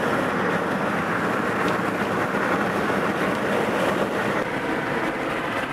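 Steady road and engine noise heard inside a moving car.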